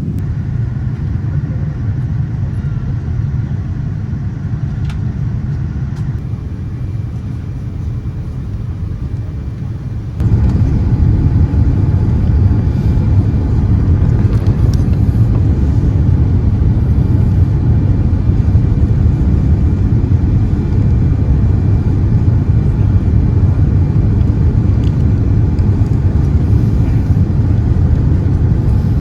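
Steady cabin noise of a Boeing 787-9 airliner in descent: a low rumble of engines and airflow, which jumps abruptly louder about ten seconds in and stays at the higher level.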